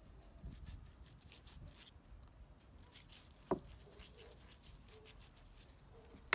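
Faint, soft strokes of a pastry brush spreading melted butter over sheets of lavash, with a sharp tap about halfway through and another at the very end.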